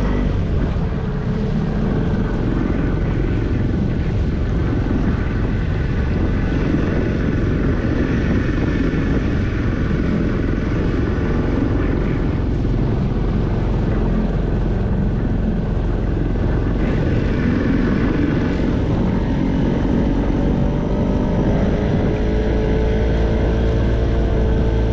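Outboard motor of a small inflatable boat running steadily under way while trolling, with water rushing along the hull; its pitch rises slightly near the end.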